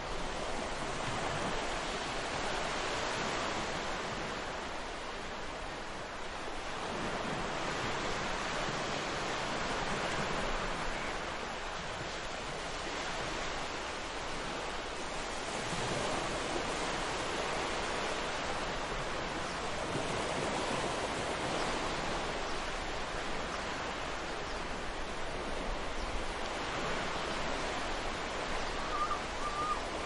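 Ocean surf breaking and washing up a beach: a continuous rush that swells and eases every five to seven seconds.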